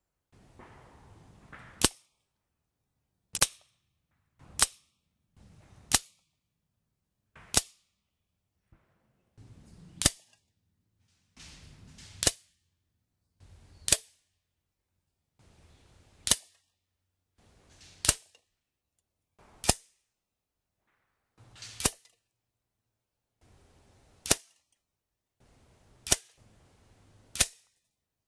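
A string of about fifteen .22 pellet shots from FX PCP air rifles striking a paper target on a metal pellet trap, each one a single sharp crack, coming at uneven intervals of one to two and a half seconds.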